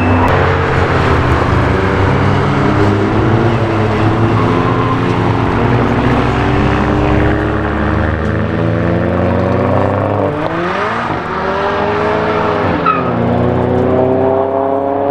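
Cars' engines running hard on a race track, more than one engine note at once, pitch climbing slowly. A quick rise in pitch about ten seconds in and a drop near thirteen seconds.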